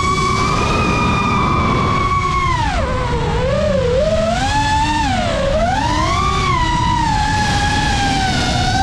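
Geprc Mark5 FPV quadcopter's brushless motors and propellers whining with throttle changes over a steady rush of air. The pitch holds high, drops about three seconds in, swoops up and down a few times, then settles a little lower near the end.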